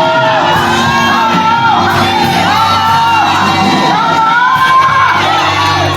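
Church praise music: several voices singing and shouting over steady held instrument chords.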